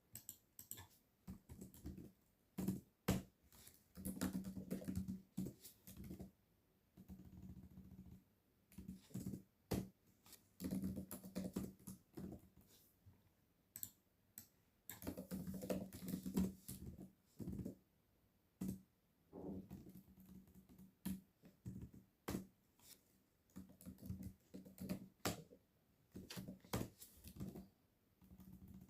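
Typing on a computer keyboard: runs of keystrokes lasting a second or two, broken by short pauses, with occasional louder single clicks in between.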